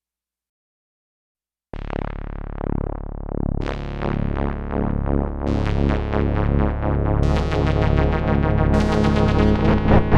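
Sequential Prophet-5 Rev 4 synthesizer playing a dry FM-style patch, with oscillator 2 modulating at audio rate through the Poly-Mod section. After nearly two seconds of silence, a sustained low drone starts, and new, brighter tones stack on every couple of seconds, pulsing toward the end.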